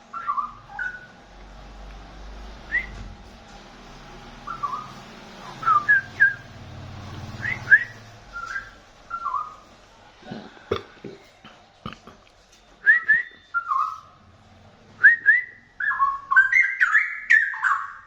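Straw-headed bulbul (cucak rawa) singing short, rich whistled phrases that are spaced out at first and run together into a fuller burst of song near the end. A few sharp knocks come about ten seconds in.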